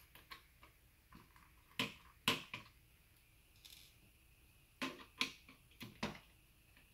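A dozen or so sharp clicks and taps at uneven intervals, with the loudest pair about two seconds in and another pair about five seconds in. They come from a small screwdriver, tiny self-tapping screws and a gel blaster's plastic receiver being handled and set down on a wooden workbench as the screws are taken out.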